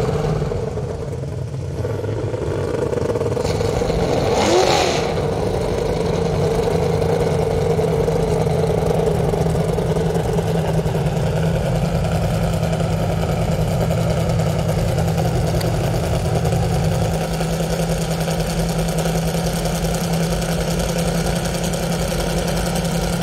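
Outboard engine of a tunnel-hull racing powerboat running at speed, with a pass-by about four to five seconds in where it is loudest and its pitch shifts. After that it runs on at a steady, lower pitch.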